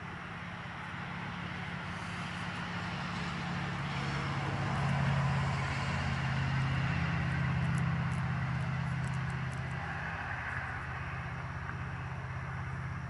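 A motor vehicle's engine passing by, a low hum with road noise that grows louder to a peak about five to eight seconds in and then fades.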